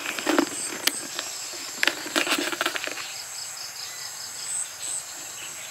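Insects chirping steadily at a high pitch, with a few sharp clicks and knocks during the first three seconds.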